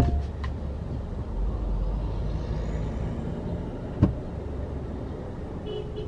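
Low, steady rumble of road traffic heard from inside a car at a city intersection, with a single sharp knock about four seconds in and a brief high tone near the end.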